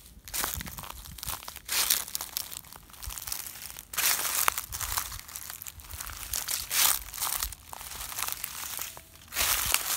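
Footsteps crunching through dry fallen leaves and pine needles, a crackling crunch with each slow step, about one step every second or so.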